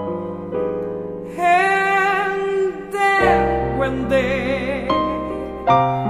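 A woman singing long held notes with wide vibrato over piano chords; a deeper piano chord comes in about halfway through.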